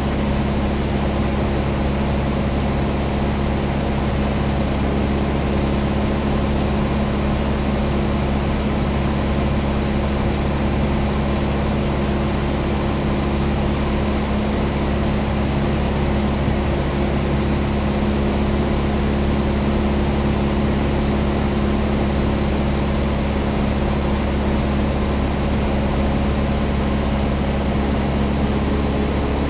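Piston engine and propeller of a single-engine high-wing light aircraft in flight, heard inside the cabin as a steady, unchanging drone.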